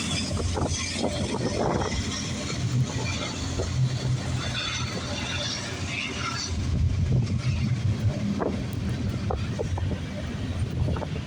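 Diesel locomotive engine running at the head of a train: a low steady rumble that grows louder about two-thirds of the way in. A hiss of rain and wind sits over it.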